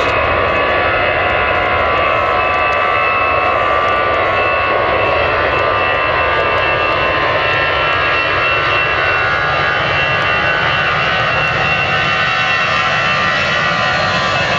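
Airbus A320-214's CFM56-5B jet engines running: a loud, steady rush with high whining tones over it and no clear change in level.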